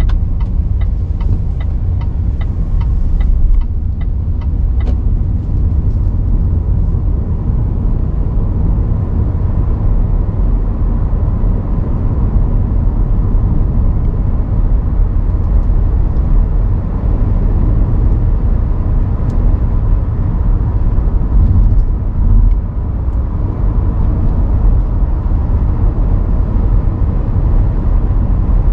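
Car driving along city streets: a steady low rumble of road and engine noise. A regular ticking runs through the first three or four seconds.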